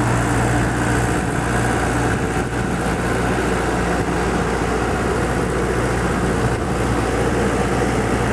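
Engine of a 2005 ASV RC50 rubber-track skid steer idling steadily, with an even low hum.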